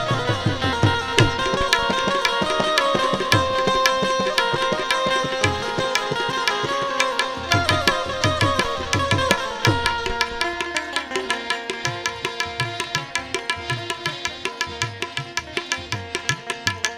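Instrumental interlude of a Gujarati bhajan: a sustained harmonium melody over tabla, whose bass drum strokes bend in pitch, with a quick, even percussion beat that grows more regular in the second half.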